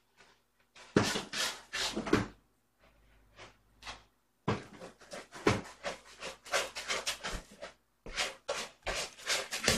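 A cat scratching and digging in a litter box, rasping scrapes of litter in irregular quick strokes: a short spell about a second in, then a longer busy run from about four and a half seconds on.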